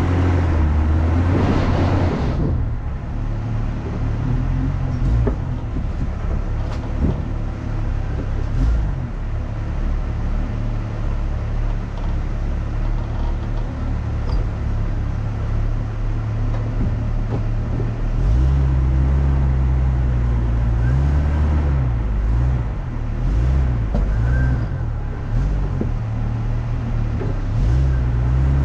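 Off-road vehicle engine running on a trail, its pitch rising and falling with the throttle in the second half, with scattered knocks and rattles.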